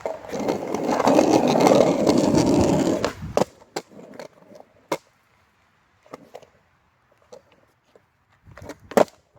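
Skateboard rolling on roller-skate wheels for about three seconds, then stopping, followed by a few sharp clacks of the board, the loudest near the end.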